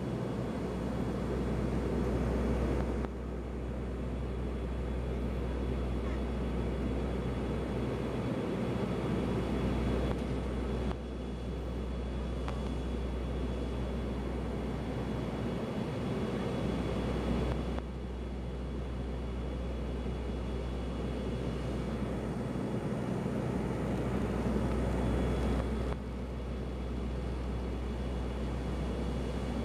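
Steady low drone of an ATR 72-200's twin Pratt & Whitney PW124B turboprop engines and propellers, heard inside the passenger cabin in flight.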